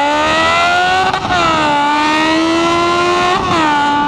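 Yamaha XJ6 N motorcycle's four-cylinder engine accelerating under load. It shifts up twice, about a second in and again near the end, with the pitch dropping at each shift, then running steadily.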